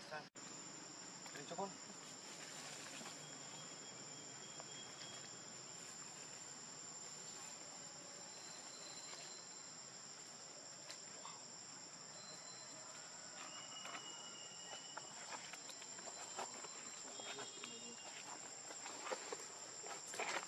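A steady, high-pitched chorus of forest insects, a constant buzzing trill. It drops out for an instant just after the start, and a few faint clicks and short high notes come and go over it.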